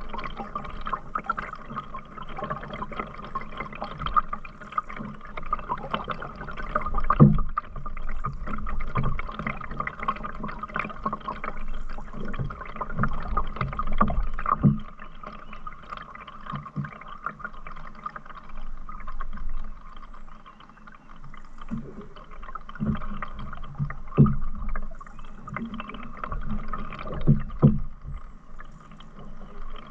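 Canoe being paddled: water swishing and gurgling with the strokes, with occasional knocks, the loudest a few seconds apart near the end.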